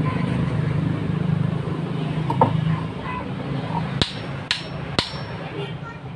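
Three sharp claw-hammer taps, about half a second apart with a short metallic ring, on the end of a car air-con blower motor's housing as it is reassembled after a carbon-brush replacement. They come over a steady low hum that fades after about three seconds.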